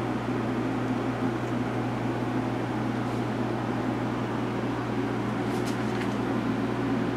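Steady hum of grow-room machinery: fans running and moving air, with a constant low electrical drone beneath. A few faint ticks come near the end.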